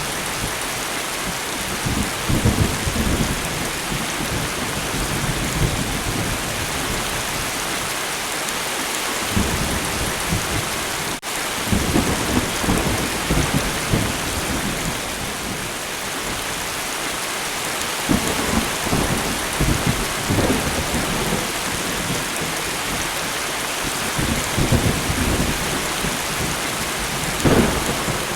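Steady rain hissing, with thunder rumbling low several times, strongest around two, twelve, nineteen to twenty and twenty-seven seconds in. The sound dips out for an instant about eleven seconds in.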